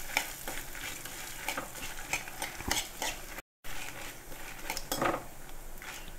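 Metal spatula scraping and clinking against a metal kadai while stirring dried red chillies and whole spices roasting in a little coconut oil, with a light sizzle underneath. The sound cuts out for a moment a little past halfway.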